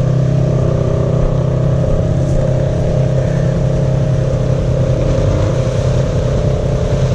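ATV engine running steadily at low revs, its pitch holding constant.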